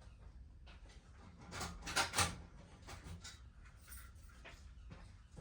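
Scattered clicks and knocks of handling, the loudest a short cluster about two seconds in, as a fire alarm pull station is reset.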